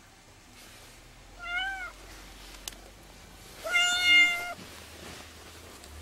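Domestic cat meowing twice. The first is a short call that rises and falls in pitch, about one and a half seconds in. The second, about four seconds in, is a longer, louder meow held on one steady pitch.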